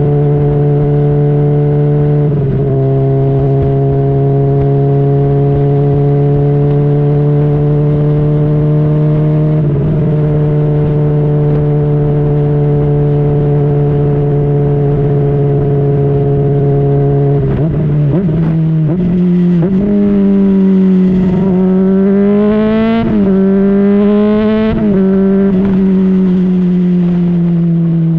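2010 Honda CBR600RR inline-four with a Yoshimura slip-on exhaust, running at nearly steady cruising revs for most of the time. In the last third it revs up hard, with the pitch dropping suddenly at each of two upshifts, then winds down steadily as the throttle is rolled off.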